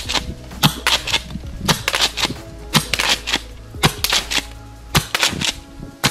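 Golden Eagle 8877RW gas airsoft pump-action shotgun (a WP870 replica, set to six BBs per shot) being fired and racked rapidly. It fires about one shot a second, each gas pop closely followed by the sharp clacks of the metal pump being worked back and forth.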